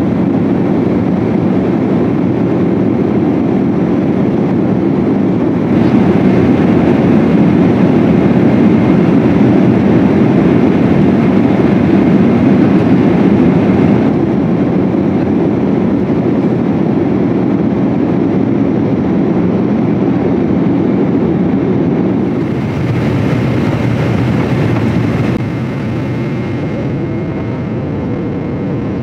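Steady cabin noise of a Boeing 777-200 in flight: a deep, even rush of engines and airflow. Its loudness steps up or down slightly a few times.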